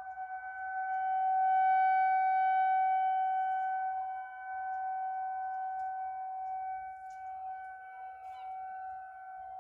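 Federal Signal 2001 rotating electromechanical warning siren holding one steady, unwavering tone. It swells louder early on and then eases back as the rotating horn sweeps past.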